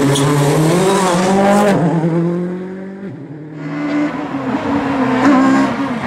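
Ford Focus WRC's turbocharged four-cylinder engine pulling hard out of a hairpin: the revs climb, drop at an upshift a little under two seconds in, then fade away. After a short lull another rally car's engine comes in, its revs rising and falling as it gets louder.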